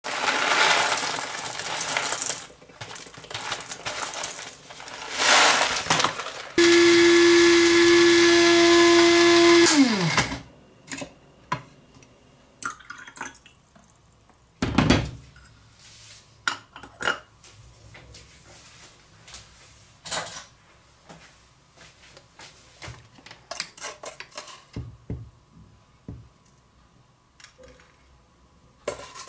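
Coffee beans rattle into an electric blade coffee grinder, which then runs for about three seconds with a loud steady whine and winds down with a falling pitch. Then come scattered clinks and scrapes of a metal spoon against the grinder and the aluminium moka pot's filter basket as the grounds are spooned in.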